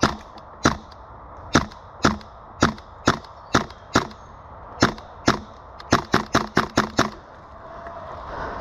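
HPA-powered Tokyo Marui MP7 gas-blowback airsoft gun firing single shots as sharp cracks, spaced unevenly about half a second to a second apart, then a quicker string of about six shots before it stops.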